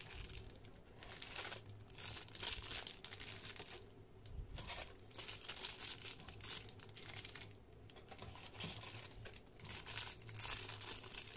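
Thin clear plastic accessory bags crinkling as they are squeezed and turned over in the hands, in bursts with brief pauses.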